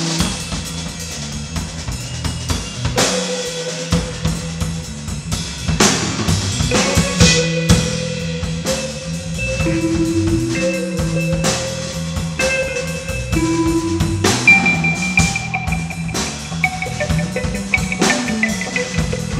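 A rock band playing: a drum kit keeping the beat with bass drum and snare hits, under electric guitar that holds long notes in the second half.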